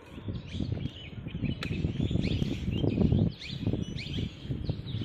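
Small birds chirping repeatedly over a loud, choppy low rumble. The rumble swells to its loudest about three seconds in, then drops suddenly.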